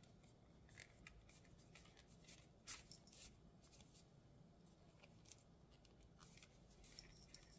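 Near silence with faint rustles and a few light clicks as a yarn end is worked through thick crocheted stitches with a needle.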